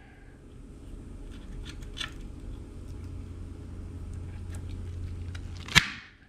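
Light clicks and rubbing as a grommet setting tool is placed over a brass grommet on mesh shade fabric, then one sharp claw-hammer strike on the setting tool near the end, curling the grommet over.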